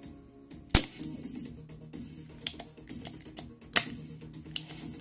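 Spring-loaded desoldering pump clicking sharply twice, about three seconds apart, the first as its plunger snaps back to suck molten solder off a circuit-board joint. Background music plays throughout.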